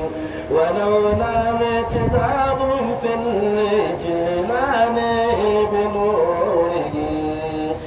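A man singing an Arabic praise poem solo into a microphone, with no instruments. The voice holds long notes and slides between pitches, with a short pause about half a second in.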